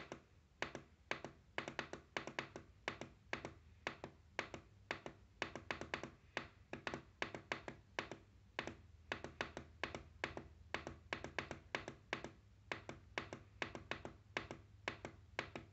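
The plus button on a Sharp SPC585 projection alarm clock is pressed over and over, each press a small plastic click, at about two to three presses a second as the alarm's minutes step up.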